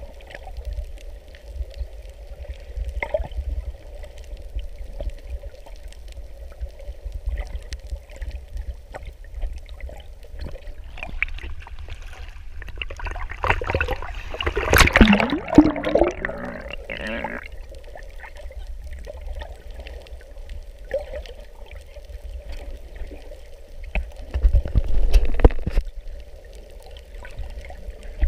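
Water rushing and rumbling around an underwater action camera, with a loud burst of splashing about halfway through as the camera breaks the sea surface, and another surge of rushing water a few seconds before the end.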